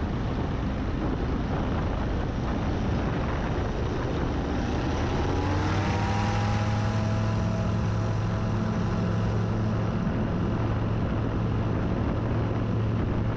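Light floatplane's engine and propeller running under a heavy rush of wind over the wing-mounted microphone. About five seconds in, the engine note rises and then holds a steady hum.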